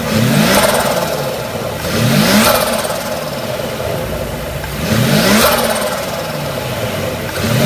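Nissan Skyline R34 25GT Turbo's RB25DET turbocharged straight-six revved in three quick blips, each rising and falling back to idle, with another starting near the end. The blow-off valve is blocked off, so each throttle lift gives turbo flutter: the compressor chattering as boost backs up through it.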